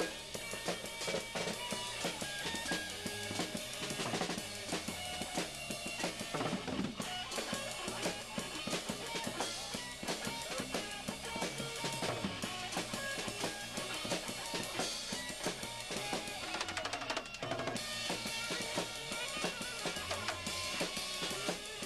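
Live band music with the drum kit to the fore, bass drum and snare beating steadily under electric guitar. A fast run of drum hits comes about three-quarters of the way through.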